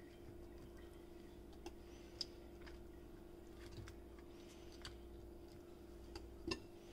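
Faint, scattered light clicks and taps, about seven in all and the loudest near the end, from a metal spoon and cauliflower florets being handled against a batter bowl and a steel bowl. A steady low hum runs underneath.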